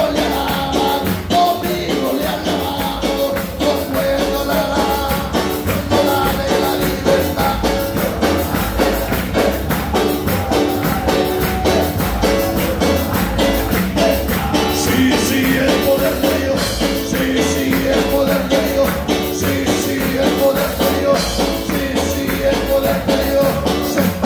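Live Pentecostal worship music: a fast, rhythmic chorus sung by a congregation with instruments, and many hands clapping along to a quick steady beat.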